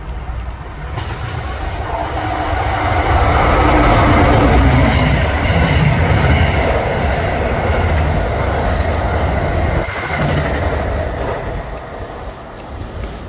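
Amtrak train led by a Siemens ACS-64 electric locomotive passing by, its wheel and rail noise building to its loudest about four seconds in and fading away over the last few seconds.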